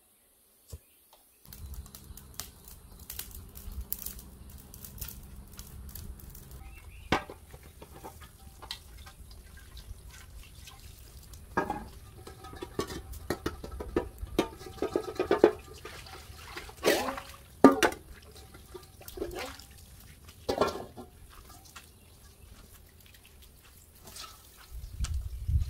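Water running and splashing in a sink, with irregular knocks and clatters of things being handled in it, over a steady low hum.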